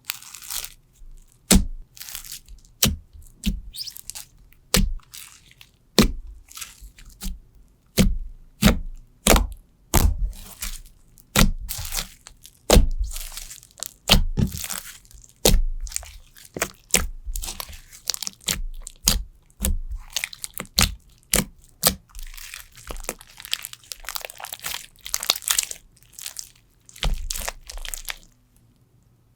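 Slime being squeezed and pressed by hand, giving a run of sharp clicking pops at about one or two a second, with denser crackling near the end.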